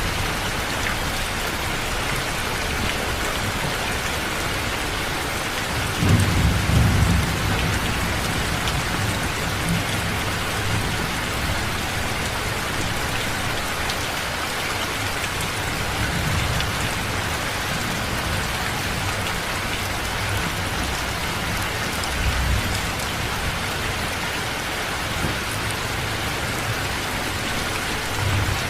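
Steady heavy rain with low rolls of thunder, the loudest about six seconds in and another about twenty-two seconds in.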